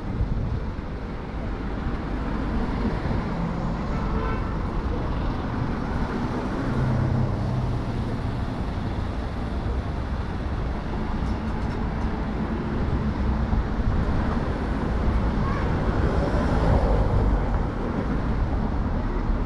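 Street traffic: cars going by with steady engine and tyre rumble, a deeper engine tone about seven seconds in, and a louder stretch a few seconds before the end as a vehicle passes close.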